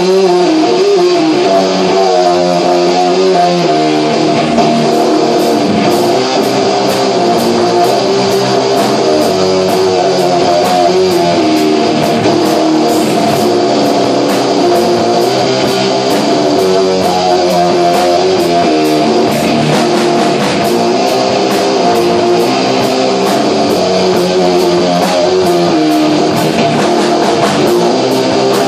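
Live rock band playing an electric guitar riff with bass guitar. A steady beat of high ticks joins about five seconds in.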